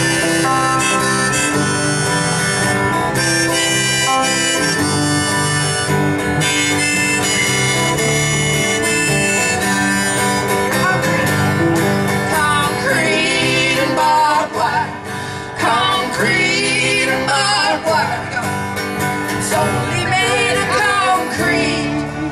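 Live country band playing a song on guitars, with a bending, wavering lead line coming in about halfway through.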